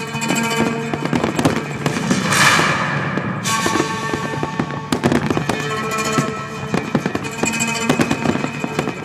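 Fireworks display: a rapid run of bangs and crackles, with a loud hissing burst about two seconds in, over music playing.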